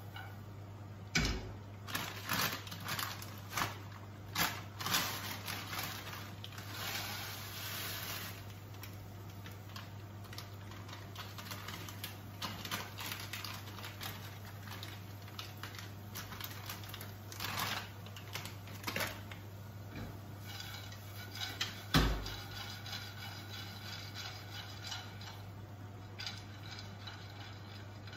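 Frying pan clattering and scraping on a gas hob's grate as it is moved and tossed, with scattered clicks and knocks that are thickest in the first several seconds. One hard knock late on is the loudest. In between, frozen peas are tipped from a plastic bag into the pan.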